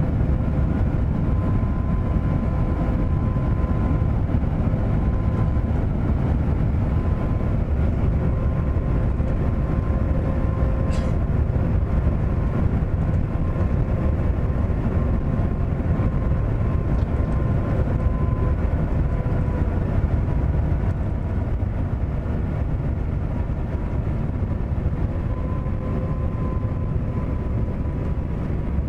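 Cabin noise of an Airbus A350-1000 airliner on final approach with gear down, heard from inside the cabin. A steady deep rumble from its Rolls-Royce Trent XWB engines carries two steady engine tones.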